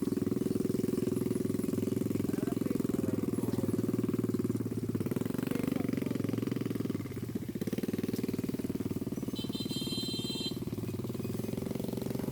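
A small engine running steadily with a fast, even pulse, easing off briefly about seven seconds in. A short high-pitched tone sounds about ten seconds in.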